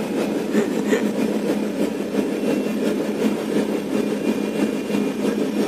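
Tugboat's diesel engine running steadily, a constant low drone.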